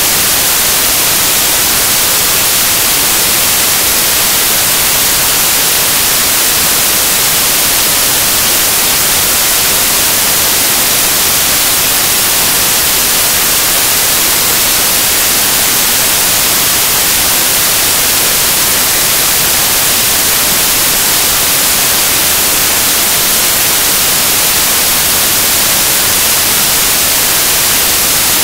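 Loud, steady hiss of static, like white noise, strongest in the highest pitches and unchanging throughout, with no other sound: a dead audio signal on a recording whose picture is frozen.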